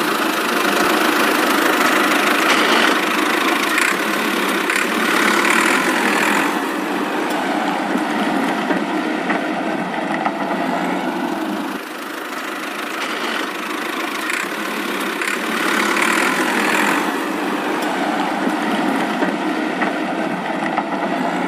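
Plastic toy truck's hard wheels and loose plastic parts rattling and rumbling continuously as it is dragged across a tiled floor on a string.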